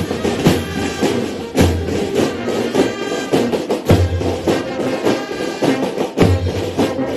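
A school marching band playing a piece: rattling snare drums under a pitched brass melody, with heavy bass-drum beats about every two seconds.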